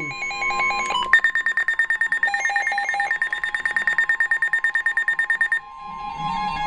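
Emergency Alert System alert tones playing from a TV for a severe thunderstorm warning: after a second of stepping tones, a high, rapidly pulsed beeping tone sounds for about four and a half seconds, then cuts off sharply.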